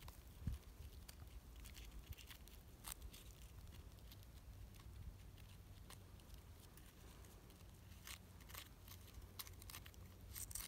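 Faint, scattered scratching and crunching of metal tweezers picking at a small greensand nodule, loosening grains of sand, with a cluster of ticks near the end. A low steady rumble lies under it.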